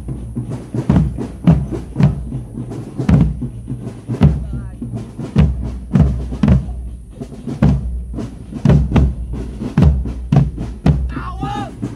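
Marching drum band playing, large bass drums struck with mallets in a steady repeating marching rhythm, with sharper drum hits over the top.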